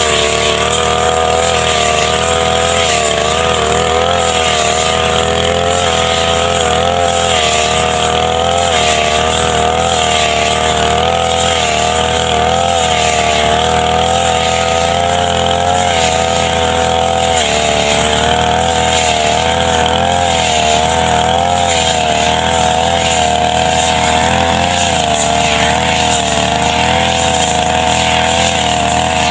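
Brush cutter's small two-stroke engine running steadily, its pitch wavering slightly up and down.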